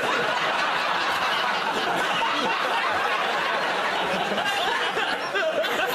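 Studio audience laughing, a dense crowd laugh that holds steady throughout.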